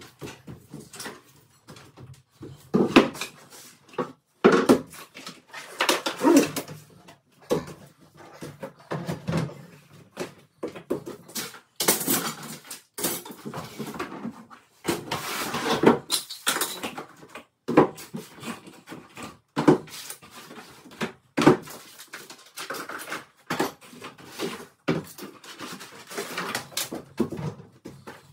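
Flat-pack furniture panels and cardboard packaging being handled: irregular knocks, scrapes and rustles as boards are lifted out of the carton and set down on the floor.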